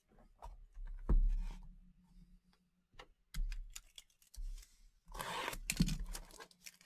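Plastic shrink wrap being torn and crinkled off a sealed box of Panini Contenders Draft Picks trading cards, with scattered handling clicks. There is a sharp knock about a second in and a longer rustle near the end.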